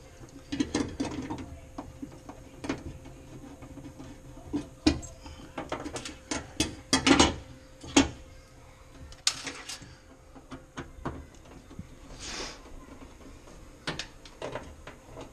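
Metal hand tools and burner parts clicking, tapping and scraping on a stainless-steel gas cooktop while it is being dismantled. The clicks come irregularly, with the loudest run of quick knocks about seven seconds in.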